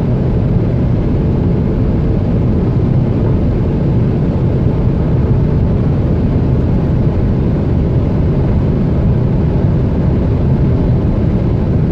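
Renault Megane IV's 1.5 dCi four-cylinder turbodiesel running flat out just under 4,000 rpm near its top speed, heard from inside the cabin as a steady, loud drone mixed with wind and road noise. The sound holds even with no gear change while the car slowly gains speed.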